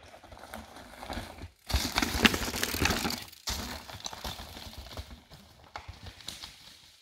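Mountain bike rolling over a rocky dirt trail: tyres crunching over stones and the bike rattling, with many small knocks. A much louder clattering stretch of under two seconds starts and stops abruptly.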